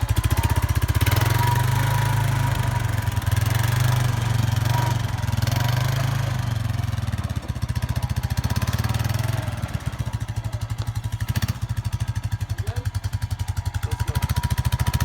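A motor vehicle's engine running steadily with a fast, even pulsing; it eases somewhat after about seven seconds.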